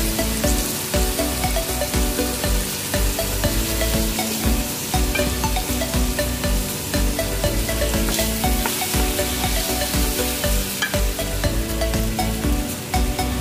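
Wooden spoon stirring and scraping rice and toasted vermicelli in an aluminium pot, over a steady sizzle of frying in hot oil.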